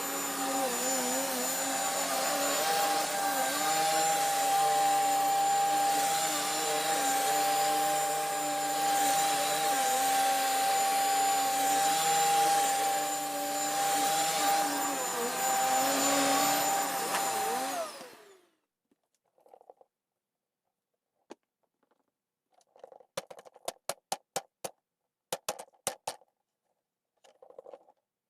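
Hoover vacuum cleaner running with a steady motor whine, the uploader having left it clogged. It is switched off about two-thirds of the way in, and the whine falls in pitch and dies away. Scattered clicks and taps follow.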